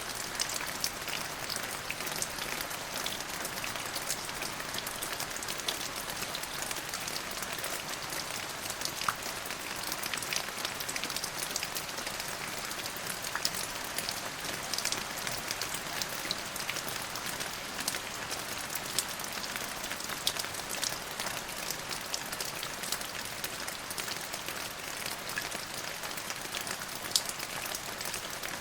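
Steady rain falling on a surface: a dense, even hiss with many separate drops ticking through it.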